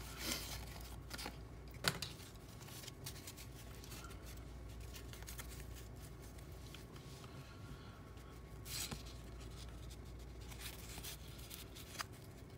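Cardboard 1987 Topps baseball cards being thumbed through by hand: soft sliding and scraping of card on card, with a few sharper rasps about two seconds in, around nine seconds and near the end.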